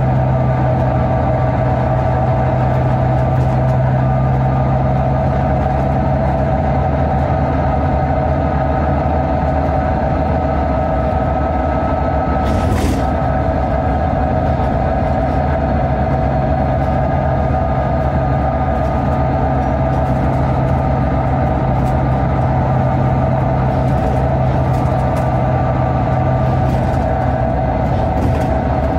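Volvo B9TL double-decker bus's 9.4-litre Volvo D9B straight-six diesel running at a steady pitch, with one sharp click about halfway through and a change in engine note near the end.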